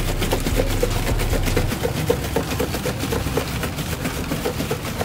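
A paper bag of fried food being shaken hard by hand, rustling and rattling in quick even strokes about five a second, over a low steady hum.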